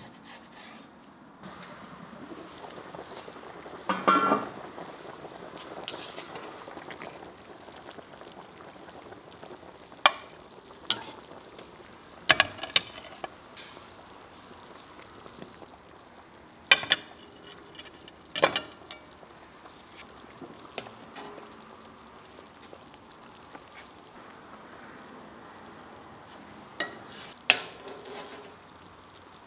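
A cauldron of meat broth cooking with a steady bubbling hiss. About ten sharp knocks and clinks of utensils are scattered through it.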